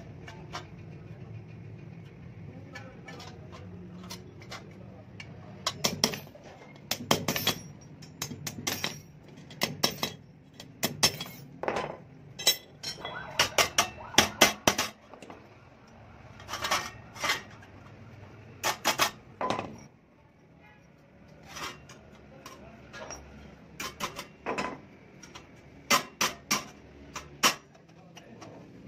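Small hammer tapping the steel hub plates of a clutch disc into place: irregular runs of sharp metallic clinks and knocks that start a few seconds in, with a short lull about two-thirds of the way through.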